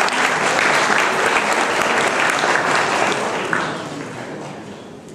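Audience applauding, a dense clapping that thins and dies away over the last couple of seconds.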